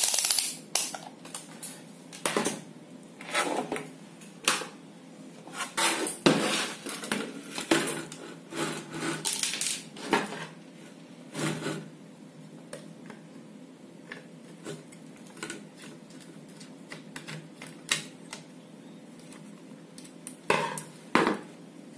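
Handling clatter: irregular knocks and clinks as a CRT TV circuit board and hand tools are moved about and set down, busiest in the first half and sparse after that, with two close knocks near the end.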